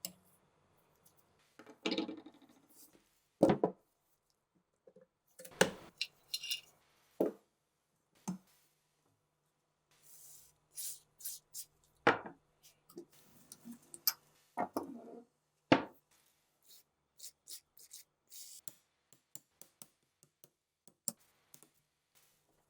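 Metal parts of a rusty MG-34 machine gun being handled and taken apart by hand: irregular knocks and clicks with short scrapes between them, a few of the knocks sharp and loud.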